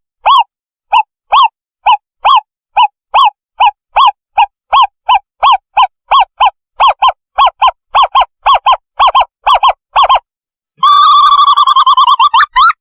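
Owl calls played as a bird-catching lure: a long run of short, clear hoots, about two to three a second and slowly quickening, then after a brief pause a fast bubbling trill near the end.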